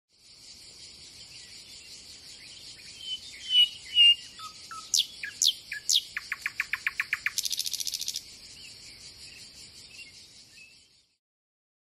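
Birds singing over a steady high-pitched insect chorus. There are a few chirps, then three quick downward whistles about five seconds in, a run of about ten even notes, and a fast buzzy trill. Then it all fades out near the end.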